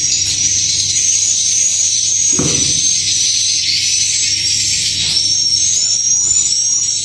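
Dense, continuous high twittering of swiftlet calls filling a swiftlet house, with a steady low hum beneath. A brief low knock comes about two and a half seconds in.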